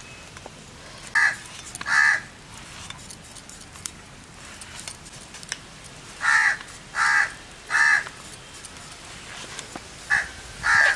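A crow cawing: two caws about a second in, three in quick succession about six seconds in, and two more near the end.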